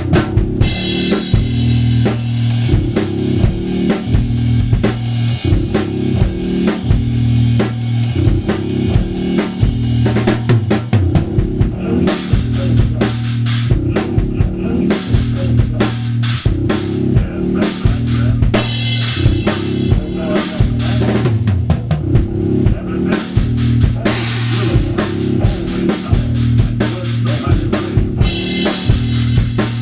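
Drum kit improvisation, with kick, snare and rimshots, played over a looped backing track whose repeating bass line runs underneath.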